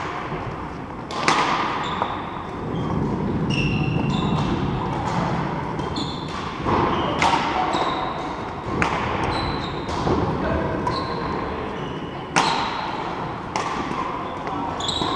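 Badminton rally: rackets striking a shuttlecock in quick exchanges, sharp hits about every second that ring in the hall, with short high squeaks of players' shoes on the wooden court floor.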